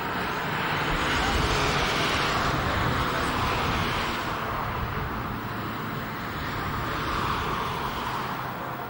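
Road traffic noise from vehicles passing on a nearby road, swelling louder twice and fading, over a low rumble.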